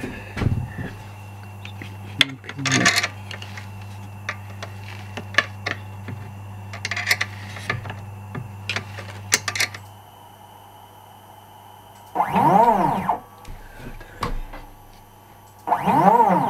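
A spanner clicks and scrapes against the metal fittings of a DIY CNC machine's axis carriage over a steady low hum. Then the axis stepper motor makes two short moves, each a whine that rises and falls in pitch as it speeds up and slows down, driving the spindle against a dial indicator to measure lead-screw backlash.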